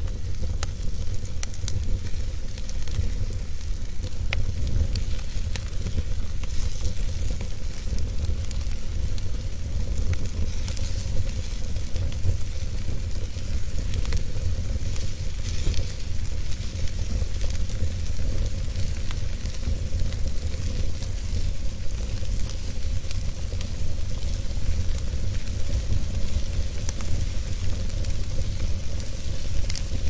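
Wood fire burning in a fireplace: a steady low rumble of flames with an even hiss and scattered small crackles and pops from the burning logs.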